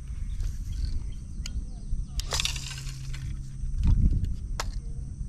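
Wind rumbling on the microphone, with the whir and a few sharp clicks of a fishing reel as a spinnerbait is cranked back in.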